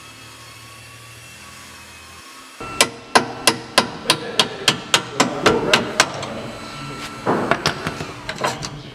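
A low steady hum, then a quick series of about a dozen hammer blows, roughly three a second, followed by a few rougher knocks and clatter near the end.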